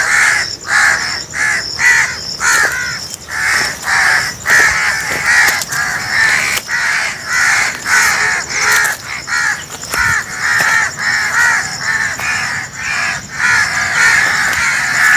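Birds calling with harsh, rasping calls, two or three a second, overlapping without a break.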